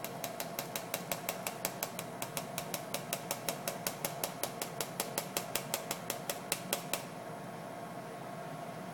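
Metal cocktail shaker tin tapping rapidly against a fine-mesh strainer to fine-strain a frothy cocktail into a glass, about five light metallic clicks a second. The clicks stop about seven seconds in, leaving a steady faint hum.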